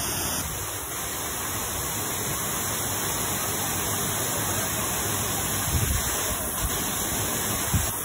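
Steady rush of a tall waterfall pouring down a rock face into a pool. A couple of brief low thumps near the end.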